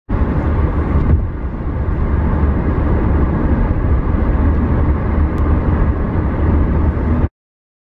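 Dense street traffic of motorbikes and cars, a steady din of engines that cuts off suddenly near the end.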